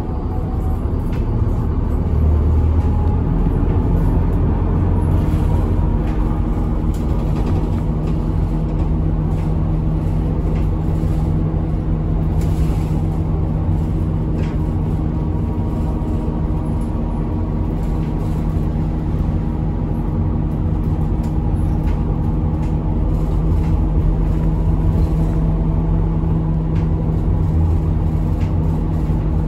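Route bus driving, heard from inside the cabin: the engine's steady hum over road rumble, with a few light knocks.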